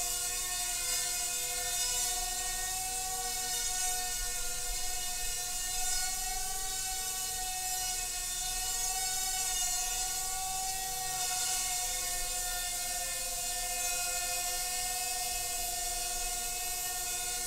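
Blade Nano QX micro quadcopter's four small brushed motors and propellers whining steadily in flight, the pitch wavering slightly as the throttle changes.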